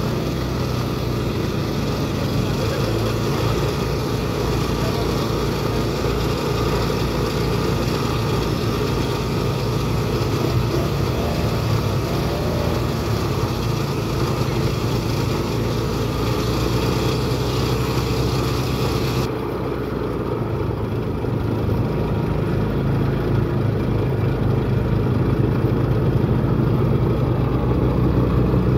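Engine-driven sugarcane juice crusher running steadily, its flywheel turning the rollers as cane stalks are fed through and crushed.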